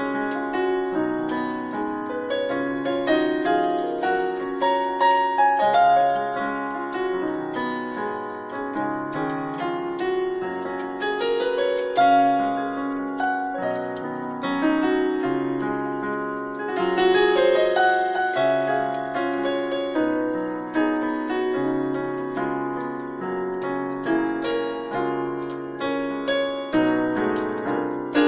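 Yamaha PSR-series arranger keyboard played with a piano voice: held chords under melodic runs and fills, at a slow, reflective pace, cycling through a 1-5-4-5 chord progression.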